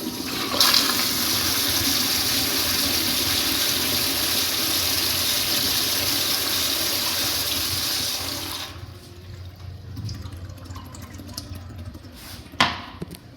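A toilet flushing: a loud, steady rush of water that drops off suddenly about nine seconds in, leaving quieter water sounds, with a sharp knock near the end.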